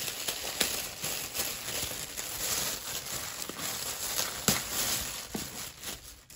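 Rustling and crinkling of packaging being handled while an item is unwrapped, with a few short sharp crackles.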